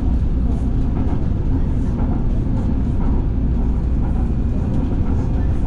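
Busan-Gimhae light rail train running, heard from inside the car: a steady low rumble of the car and its running gear.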